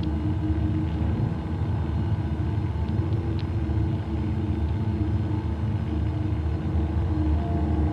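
Cinematic atmospheric drone sound effect: a steady, unchanging low rumble with a faint held tone above it.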